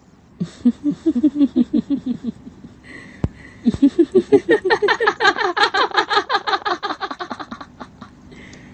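A high voice laughing in long runs of quick ha-ha pulses: a staged horror-style laugh presented as the voice on a 'red number' call. A shorter falling run of laughter is followed, after a single click, by a longer run that climbs in pitch and then fades.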